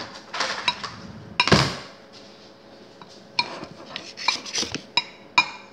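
A utensil clinking and scraping against a mixing bowl as slime is scraped off it: a run of sharp clinks with a short ring, the loudest about a second and a half in, and a quick cluster in the last two seconds.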